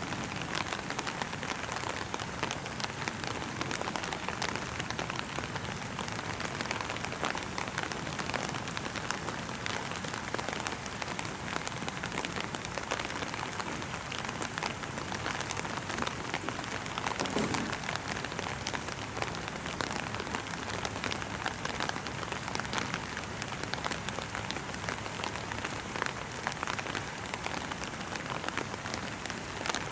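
Steady rain falling, an even hiss of many small drops.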